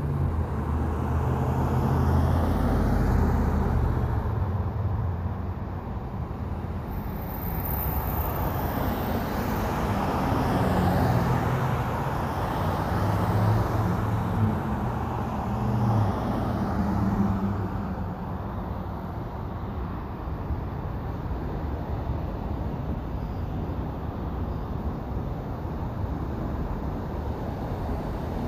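Road traffic: a steady wash of vehicle noise, with several vehicles passing and their engine hum swelling and fading, louder in the first two-thirds.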